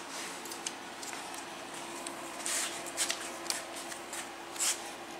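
Rustling and handling noises, with a handful of short, sharp rustles in the second half, over a steady faint hum.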